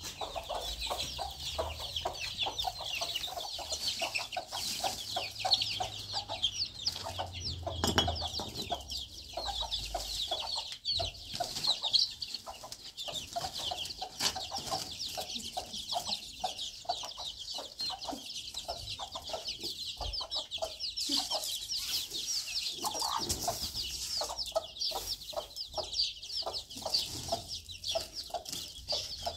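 A mother hen clucking among her chicks, which peep continuously in quick, high chirps.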